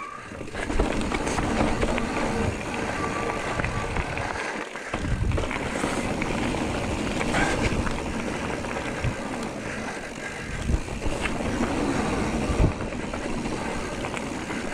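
Mountain bike riding over a rough trail: steady tyre rumble and rattling, with small knocks over bumps and one sharper knock about three-quarters of the way through.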